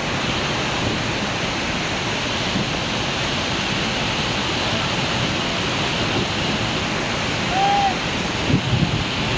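Steady, loud rush of rain-swollen water falling from the overflowing dam and waterfall. About three-quarters of the way through, one short whistle-like tone rises and falls.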